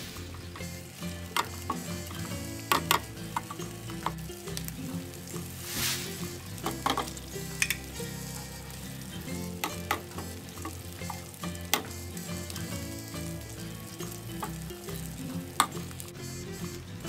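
Minced garlic sizzling in a nonstick pan while a silicone spoon stirs it, with scattered sharp knocks of the spoon against the pan; partway through, table cream is in the pan and being stirred through the garlic. Faint music underneath.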